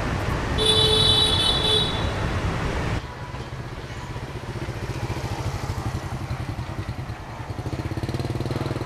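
Motorbike street traffic, with a vehicle horn beeping for about a second near the start. About three seconds in, the sound cuts to a quieter, steady low pulsing of a motorbike engine running, which grows a little louder near the end.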